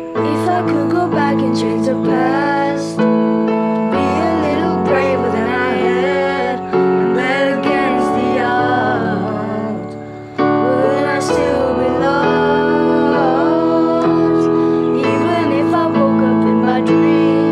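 Background music: piano chords with a wavering melody line above them, which may be a singing voice.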